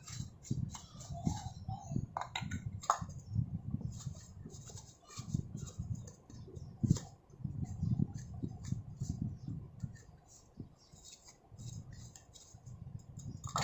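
Irregular clicks, taps and scrapes of ceiling fan motor parts being handled and cleaned on a work surface, with low handling knocks in between.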